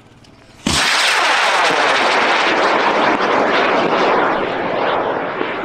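High-power rocket motor igniting with a sudden loud rush of noise about a second in, then burning steadily at full loudness and gradually fading toward the end as the rocket climbs away.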